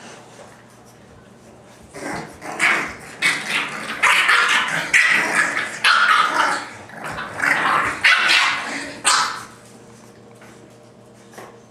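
Seven-week-old English bulldog puppies barking and growling as they play-fight. It is a rapid string of short, loud yaps and growls that starts about two seconds in and dies away after about nine seconds.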